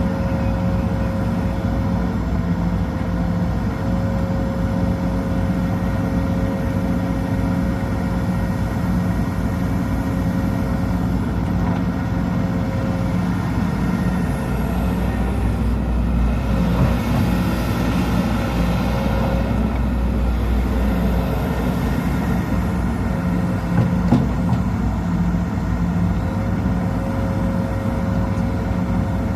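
Sumitomo SH210 excavator's diesel engine running steadily with a thin steady whine above it. The noise grows louder and rougher for a few seconds in the middle, and there is one sharp knock about 24 seconds in.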